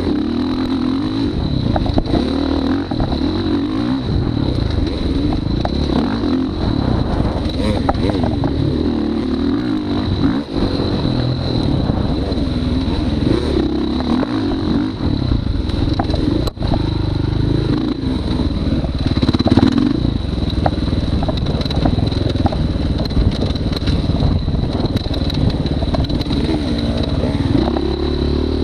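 Motorcycle engine running continuously, its revs rising and falling again and again as the bike is ridden, heard from on the bike itself.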